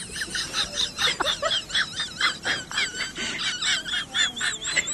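Birds chirping rapidly, a dense run of high-pitched, warbling up-and-down calls, several a second.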